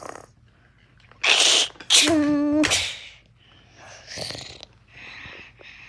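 A child's vocal noises: a sharp hissing burst about a second in, then a short held cry at a steady pitch.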